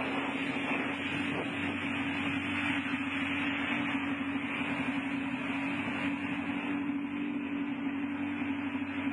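Jet ski (personal watercraft) engine running steadily at one even pitch while the craft is under way, with the hiss of water spraying off its wake.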